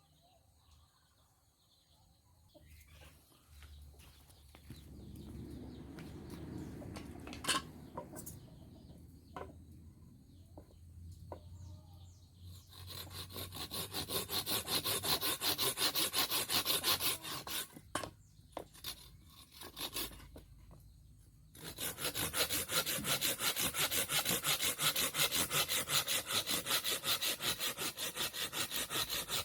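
Hand saw cutting wood in quick, rhythmic back-and-forth strokes, about four a second. The sawing starts a little before halfway, stops briefly for a few seconds with a few knocks, then resumes. Before the sawing there are quieter handling sounds and a sharp knock.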